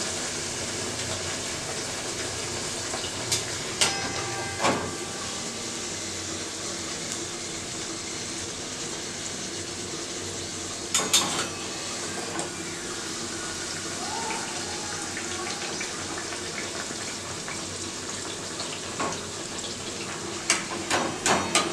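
Bhatura deep-frying in hot oil in a steel pan: a steady sizzle, with sharp clinks of a metal slotted spoon against the pan about four seconds in, around eleven seconds and several near the end.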